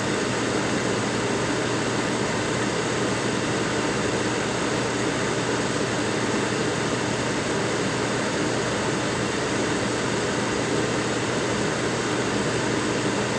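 Steady rushing hiss of blown air from a fan-driven blower, unchanging throughout, with a faint steady hum underneath.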